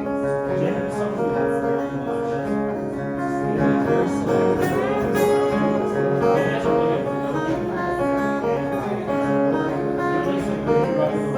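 Music with strummed acoustic guitar and other sustained pitched notes, playing an instrumental passage without singing.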